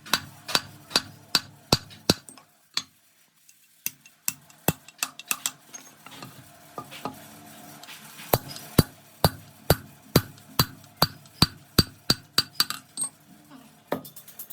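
Hammer blows on metal, about two a second, with a pause of a couple of seconds early on and another around the middle. A faint steady machine hum runs under the second half.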